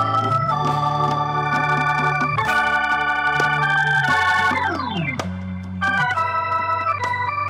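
Organ-voiced electronic keyboard playing held chords that change every second or two, with a quick falling glissando about four seconds in.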